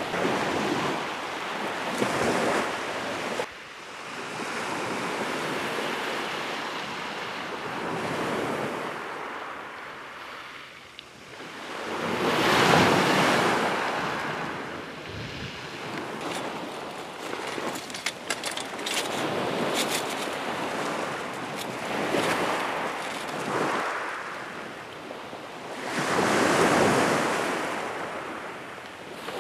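Small waves breaking and washing back over a shingle beach, swelling and fading every few seconds, the biggest about halfway through and near the end.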